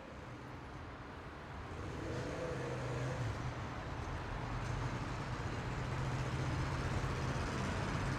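Heavy rush-hour city road traffic: a steady rumble of car, bus and truck engines with tyre noise, growing louder over the first three seconds and then holding steady.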